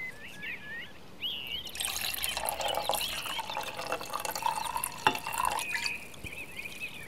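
Water running or splashing for about four seconds, with small clicks near the end of it, over birds chirping in the background.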